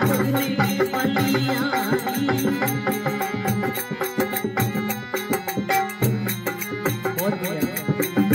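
A man singing a devotional bhajan, his voice wavering through long held notes, over a harmonium's sustained reed chords, with a steady percussion beat.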